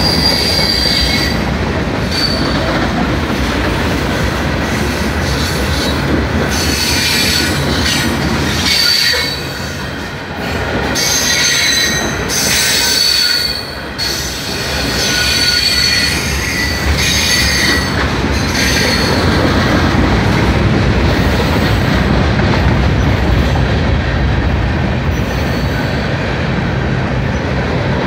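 Freight cars of a mixed manifest train rolling past close by: steady rumble and clatter of steel wheels on the rails. For roughly the first two thirds there is an on-and-off high wheel squeal, and after that the rolling becomes a steadier rumble.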